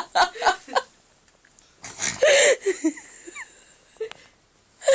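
A man snoring: one loud, rasping snore about two seconds in, after a few short bursts of stifled giggling.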